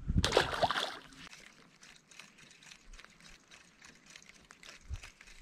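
A small bass being tossed back into the lake lands with a short splash right at the start, followed by faint trickling and dripping water.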